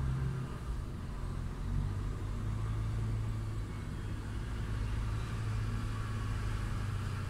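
Heavy diesel truck engine running steadily at low revs, a constant low hum, as an articulated truck moves slowly.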